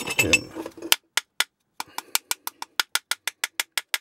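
A fibreboard base tapped rapidly and repeatedly against a metal baking tray, about six sharp taps a second starting about a second in, to shake loose static grass off the freshly flocked base.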